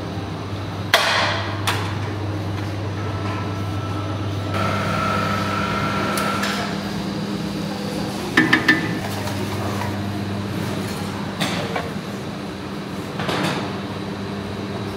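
Metal utensils clanking against steel cooking pots and serving trays: a sharp clank about a second in, a quick run of three around the middle, and a few lighter knocks later, over a steady mechanical hum.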